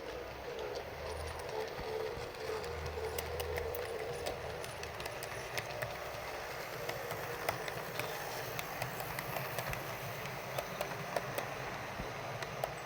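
HO-scale model steam locomotive running on track: a steady motor hum with irregular sharp clicks from the wheels and rail joints. The model is on a test run for an unwanted noise and vibration in its drive.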